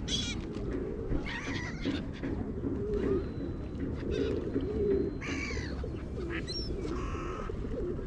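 A flock of pigeons cooing continuously, with several higher calls from gulls cutting in now and then.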